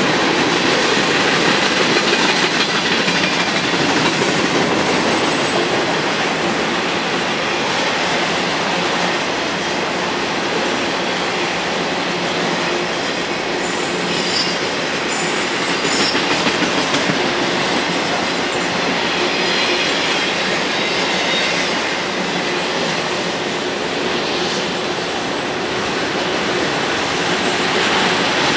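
Mixed freight train of boxcars, tank cars and autoracks rolling past close by: a steady rumble and clatter of car wheels on the rails. A few brief high wheel squeals come about halfway through.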